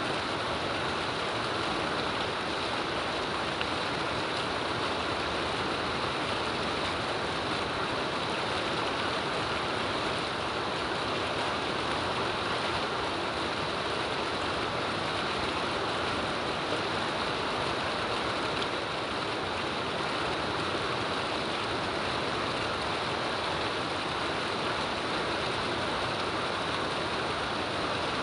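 Steady rain falling, an even rushing hiss that holds constant with no breaks.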